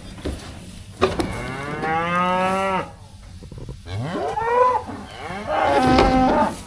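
Cattle mooing: three loud moos in a row, the first a long drawn-out one of nearly two seconds, the second rising and falling in pitch.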